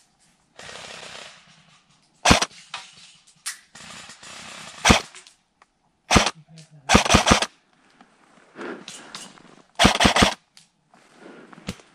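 Airsoft guns firing: several single shots spread out, and two quick bursts of about four shots each, about seven and ten seconds in.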